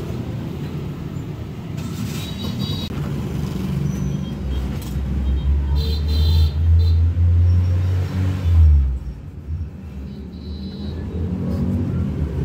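A low engine rumble, as of a motor vehicle running close by. It swells to its loudest in the middle and drops away suddenly about nine seconds in.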